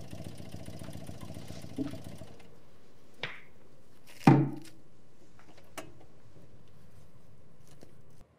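Acoustic guitar's last notes dying away over a steady low hum, then a small click and a sharp hollow knock with a short low ring as the guitar is set against the wall. The hum cuts off suddenly near the end.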